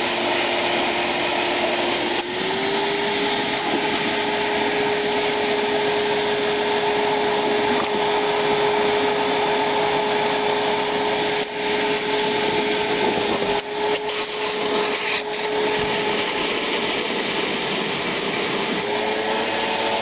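6.5 horsepower Shop-Vac wet/dry vacuum running flat out with a steady whine over a rush of noise as its hose sucks up water. The whine steps up slightly in pitch about two seconds in, and a few brief knocks come through later.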